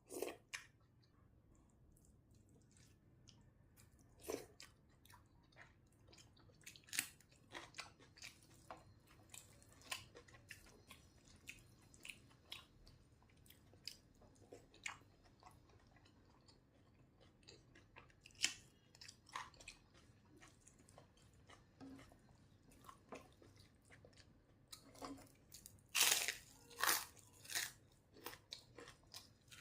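Close-miked eating: a person chewing a rice-and-lentil lunch, with many small mouth clicks and smacks, then a run of louder crunchy bites near the end.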